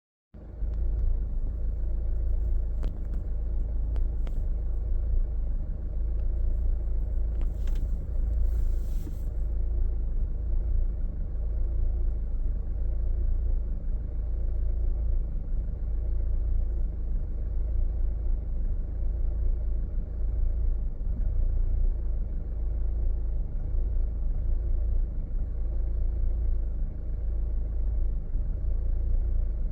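2012 Hyundai Santa Fe (automatic) engine idling with a steady low rumble that wavers in level: the rough idle the owner is showing.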